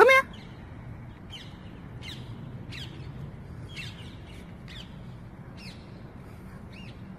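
Small bird chirping repeatedly: short, faint downward-sliding chirps about once a second over a steady low background rumble. A short, loud rising yelp sounds right at the start.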